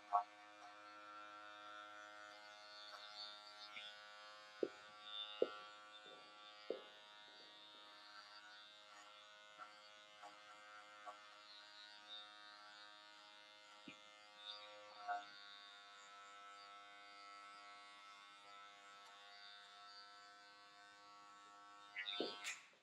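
Electric hair clippers with a guard comb attached, running with a steady buzz while cutting short hair at the back of the head. A few soft clicks come in the first fifteen seconds, and a brief louder rustle comes near the end.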